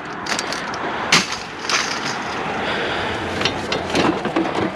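Scrap being handled and broken apart by hand: a run of sharp knocks and clatters over a steady scraping, rustling noise.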